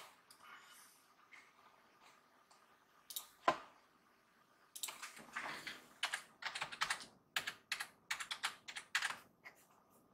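Typing on a standard PC keyboard: a couple of separate clicks about three seconds in, then a quick run of keystrokes for about four seconds as a Wi-Fi password is entered.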